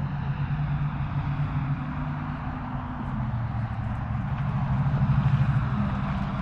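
Steady low engine hum under a constant rushing noise.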